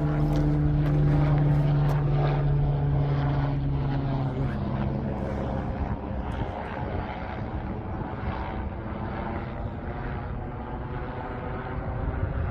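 Mountain rescue helicopter flying overhead: a steady low engine-and-rotor drone that fades after about five seconds as it moves away.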